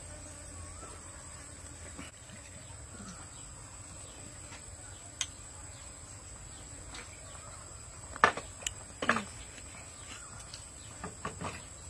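Insects in the garden trilling steadily in one high continuous tone. A few short, louder sharp sounds break in about eight seconds in and again near the end.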